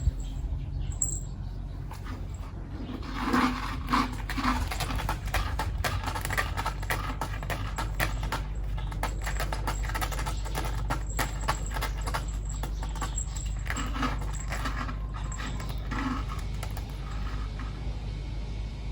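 Cat's claws scratching on concrete: a long run of quick, rasping strokes. A few short, louder sounds come in about three to four seconds in.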